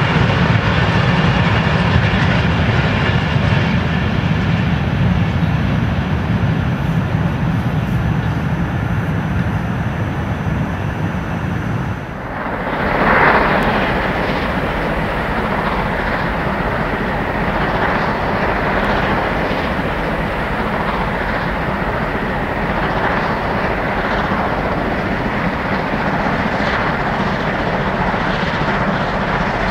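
Freight train hauled by a DR class 52.80 steam locomotive running along the track, a steady loud rail noise. About twelve seconds in the sound changes abruptly to a different, slightly quieter stretch, with a brief louder swell just after.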